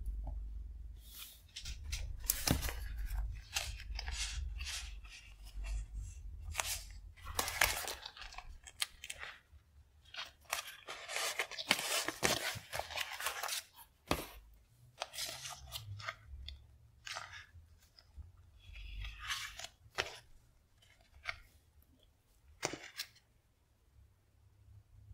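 Paper sticker sheets rustling and crinkling in irregular bursts as they are handled, leafed through and slid out of a leather pouch, with the densest crinkling in the middle.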